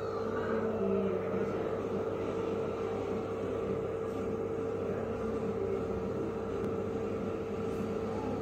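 Steady droning hum with one constant mid-pitched tone over a background hiss.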